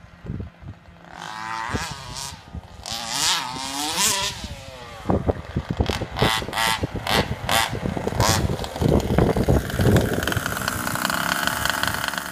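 HPI Baja 5B 1/5-scale buggy's two-stroke petrol engine revving as the car drives, its pitch rising and falling. Then comes a run of short throttle blips, and it settles into a steadier run near the end.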